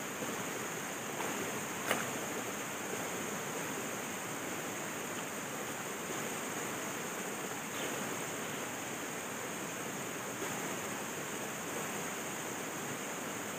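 Shallow stream water running steadily over and beside a concrete crossing, with a steady high-pitched ringing above it. A single sharp click sounds about two seconds in.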